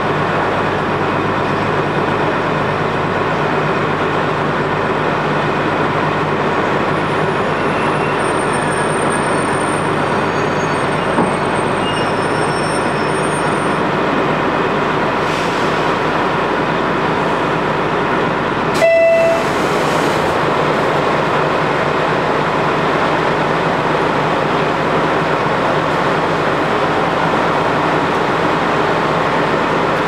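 Steady cabin noise inside a KiHa 200 diesel railcar as it draws to a stop and stands with its engine running, with faint high squeals partway through. About two-thirds of the way in there is a single sudden knock with a short beep.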